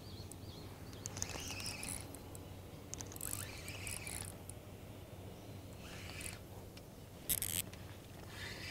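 Spinning reel worked while fighting a hooked squid: faint, scattered short high-pitched rasps, the loudest a brief one about seven seconds in.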